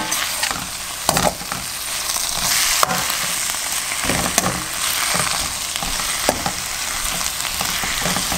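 Shrimp, spring onion and vegetables sizzling in hot oil in a steel wok, stirred and tossed with a metal spoon. The spoon scrapes and clicks against the pan now and then over the steady sizzle.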